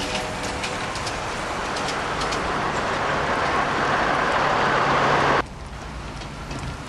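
Road vehicle passing close: its tyre and running noise swells steadily louder, then cuts off suddenly about five seconds in.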